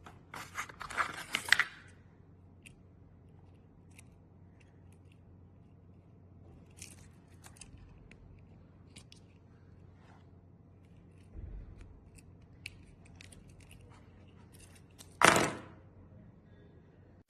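Handling noises: a burst of rustling and clicking about a second in, scattered light clicks, a low thump, then a loud short rustle near the end.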